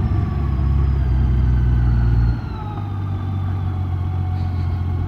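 Honda Gold Wing motorcycle engine running at low road speed, a steady low drone that drops in level about two seconds in as the throttle eases off. A faint whine slowly falls in pitch as the bike slows.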